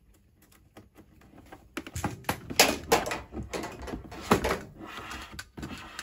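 Hard plastic of a clear storage box being handled while an electrical cable is fed through holes in it: a quick string of clicks, taps and knocks that starts about two seconds in.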